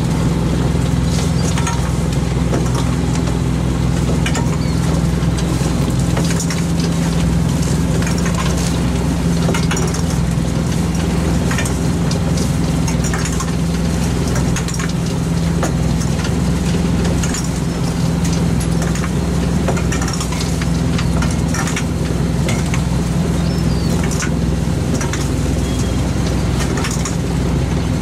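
Fishing boat's engine and hydraulic net hauler running with a steady, even drone. Scattered light clicks and rustles come from the gill net and gloved hands as the net is pulled in and fish are picked out.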